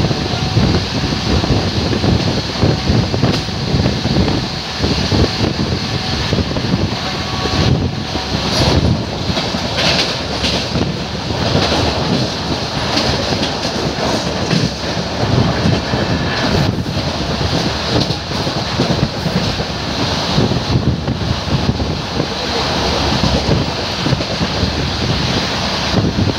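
Howrah–Malda Town Intercity Express passenger train running, a steady rumble of wheels on rails with rushing air and scattered knocks.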